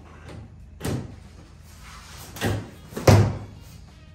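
Three dull thuds as a newly fitted golf cart seat is handled and settled onto its mounts on the cart body. The third thud, about three seconds in, is the loudest.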